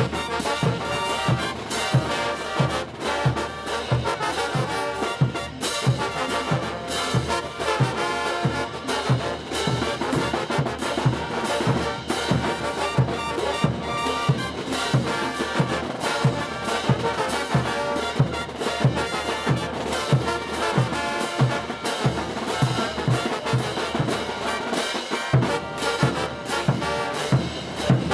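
Brass band playing morenada: trumpets and trombones over a steady bass drum beat, about two beats a second.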